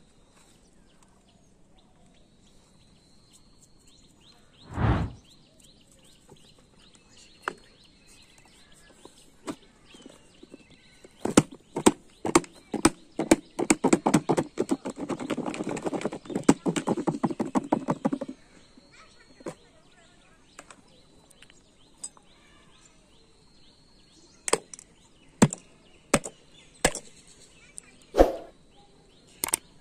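Cut guava pieces and spice mix shaken in a lidded plastic bowl: a dense, rapid rattle of knocks that runs for about seven seconds mid-way. Scattered knocks of plastic and utensils, and one low thud, come before and after.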